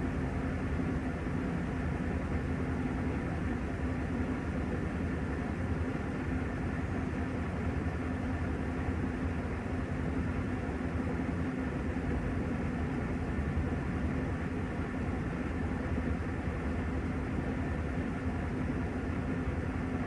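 Panasonic top-loading washing machine in its spin cycle, the tub spinning at a constant high speed: a steady hum with an unchanging tone over the motor and tub noise.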